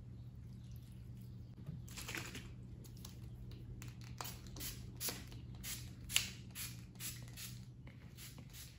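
Plastic trigger spray bottle misting orchid leaves: a quick run of short sprays, about two or three a second, starting about two seconds in, over a faint steady hum.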